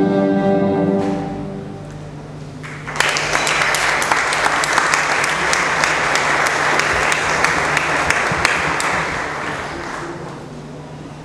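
A held chord of orchestral-sounding closing music fades out. About three seconds in, a hall audience breaks into applause that starts suddenly and carries on for several seconds before dying away near the end.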